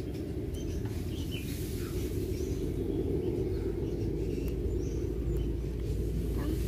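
Steady low background noise with faint, scattered bird chirps.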